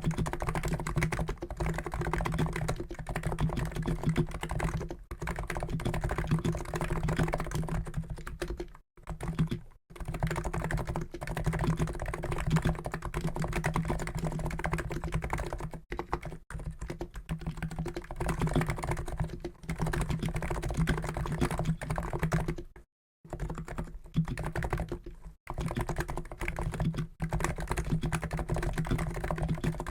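Continuous fast typing on a COX Endeavour keyboard with NOPPOO NIZ electro-capacitive 50 g switches: a dense stream of key strokes, broken by a few brief pauses, the longest about 23 seconds in.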